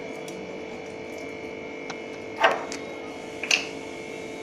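A few light taps and clicks from handling spice containers while sprinkling chili flakes and oregano onto bread, the clearest two about two and a half and three and a half seconds in, over a steady background hum.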